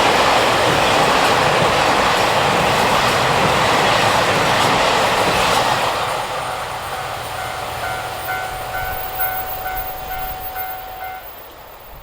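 A diesel train passes over a level crossing, its rolling noise loud at first and fading away after about six seconds. As it fades, the crossing's warning bell can be heard ringing about two and a half times a second, and it stops a second before the end.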